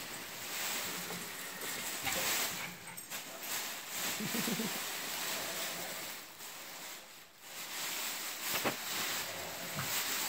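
Large white plastic bag rustling and crinkling as it is worked off a gift, with a short pitched vocal sound about four seconds in.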